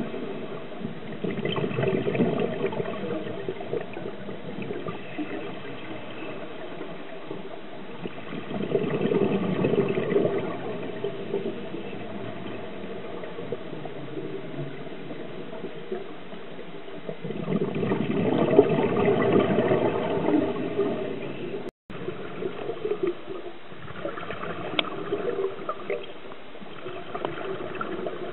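Scuba diver's exhaled air bubbling out of a regulator, heard underwater: three long bursts of bubbling, each two to three seconds, spaced several seconds apart, with a low hiss between them.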